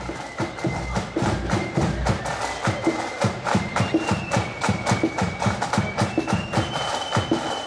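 Marching band playing as it parades: drums beat a quick, steady rhythm with low bass-drum thuds, under a high melody in long held notes.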